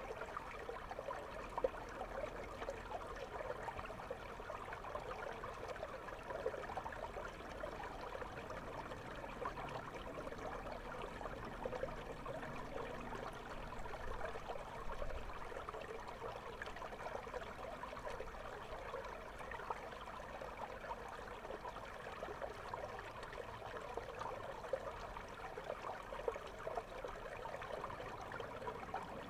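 River water flowing over a stony bed, heard through a submerged camera's microphone: a steady rush of water full of small crackles.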